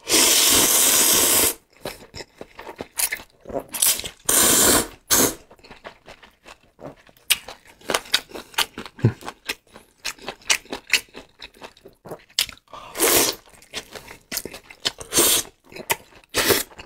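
Close-miked mukbang eating: a loud slurp of instant noodles over the first second and a half, then chewing with many wet mouth clicks, broken by a few shorter slurps.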